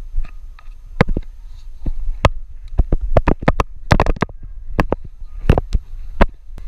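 Irregular knocks, taps and scuffs as hands and shoes grip and strike the stone blocks of a building wall during a climb, picked up close on a body-worn action camera's microphone. The knocks come in an uneven run, bunched around the middle, over a steady low rumble of wind and handling noise on the microphone.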